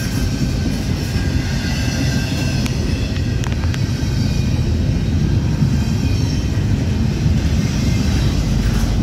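A freight train's empty double-stack well cars rolling past: a steady low rumble of steel wheels on rail, with a few sharp clanks about three to four seconds in.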